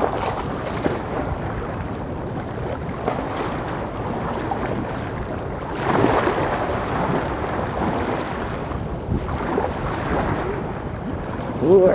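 Choppy seawater lapping and splashing close to the microphone, with wind buffeting the mic. The water gets louder about six seconds in.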